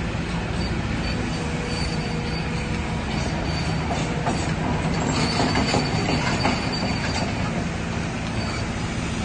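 Kobelco SK210 hydraulic excavator's diesel engine running steadily under load while digging, with a faint high metallic squeal and a run of scraping knocks in the middle.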